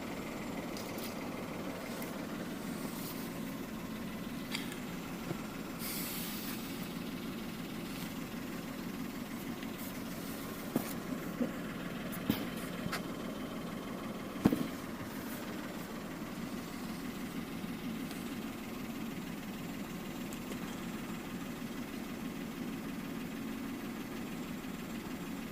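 Engine of a bi-fuel LPG/petrol Citroën C3 III idling steadily, with a few light clicks midway and one sharper knock.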